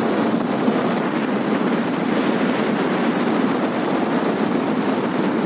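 Steady rush of wind and road noise from a moving motorcycle, with no breaks or changes.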